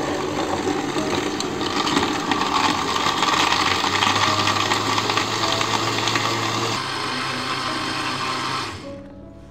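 Countertop blender running at speed, blending ice cubes, strawberries, milk and ice cream into a milkshake; it cuts off shortly before the end.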